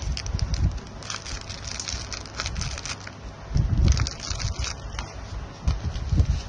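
Plastic wrapping and paper crinkling and crackling as they are handled, with a couple of dull low bumps, one about midway and one near the end.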